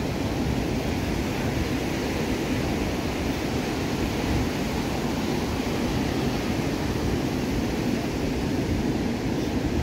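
Steady wind noise on the microphone over the wash of ocean surf breaking and running up the shore.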